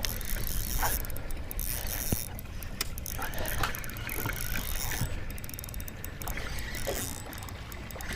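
Fishing reel being cranked as a hooked bass is reeled in, its gears whirring with scattered clicks.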